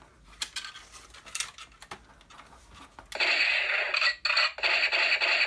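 Toy SVD sniper rifle's built-in speaker playing its electronic machine-gun firing sound effect when the trigger is pulled. It starts about three seconds in, loud and rapid-fire, with a brief break about a second later. Before it come a few faint plastic clicks.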